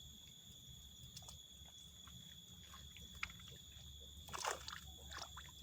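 Insects trilling steadily at a high pitch, with a few light clicks and one short rustling burst about four and a half seconds in.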